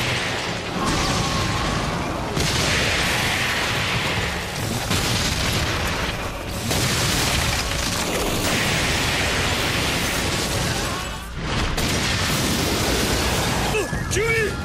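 Anime battle sound effects of a giant fox beast rampaging: a heavy, continuous low rumble with booms and several long surges of rushing noise. A man shouts near the end.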